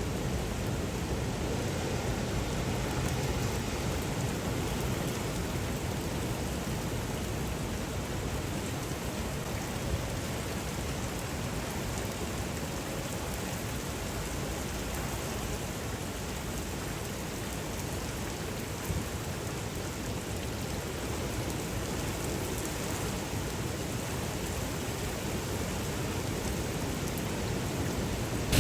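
Steady, heavy rain pouring down in a storm downpour, an even hiss with a couple of faint ticks.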